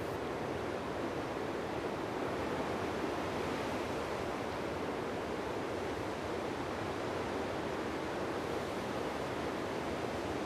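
Steady, even rushing noise with no distinct events, unchanged across the picture cuts.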